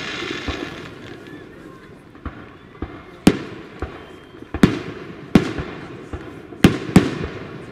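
Aerial firework shells bursting in an irregular series of sharp bangs, about five loud ones and several fainter ones, each trailing off in a rumbling echo.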